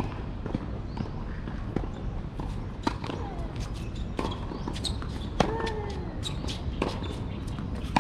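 Tennis ball bounced a few times on a hard court before a serve, then the sharp pops of racket strikes in a rally, roughly one every second and a half, with ball bounces and shoe scuffs between them.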